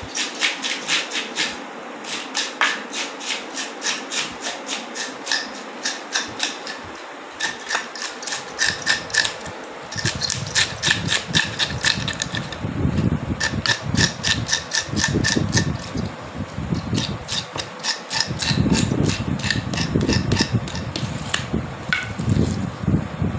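Hand-held toothed fish scaler scraping the scales off a large river fish in quick repeated strokes, several a second. A low rumbling noise joins about halfway through.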